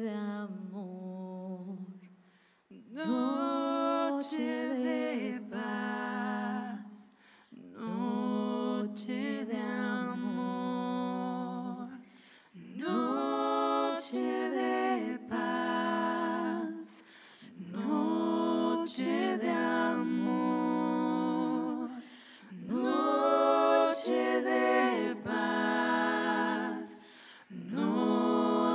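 Unaccompanied singing of a slow melody, in phrases a few seconds long with short pauses between them.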